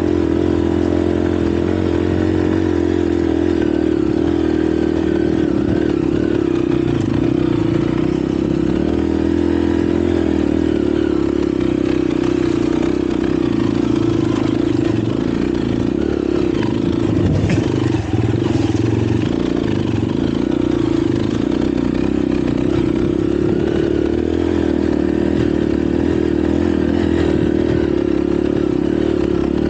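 Honda CRF150L single-cylinder four-stroke trail bike engine running steadily while pulling uphill on a dirt trail. A brief clatter of knocks comes a little past halfway.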